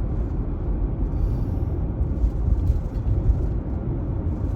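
Steady low rumble of a running car heard from inside its cabin.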